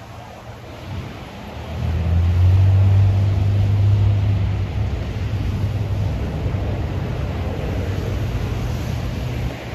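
Low, steady diesel rumble of a freight train's locomotive running along the track, swelling about two seconds in and then holding.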